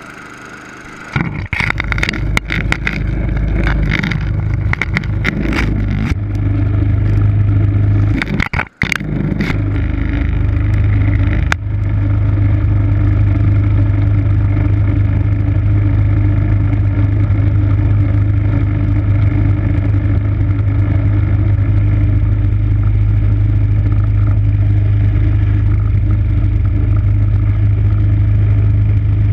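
MTD snow blower's 5 hp single-cylinder engine starting up about a second in and then running steadily, with clattering and knocking over the first ten seconds or so and a brief drop near nine seconds.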